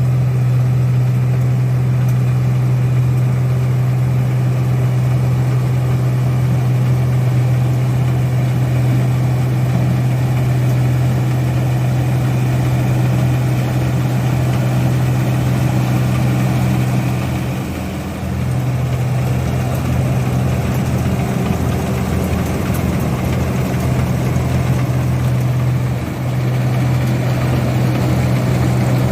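Engine of a paddy (rice) machine running steadily with a deep, even hum, dipping briefly twice in the second half.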